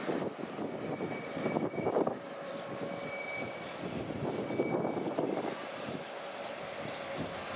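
Two TasRail TR-class diesel-electric locomotives hauling a container train, heard from afar as a steady engine drone with a faint, thin whine above it.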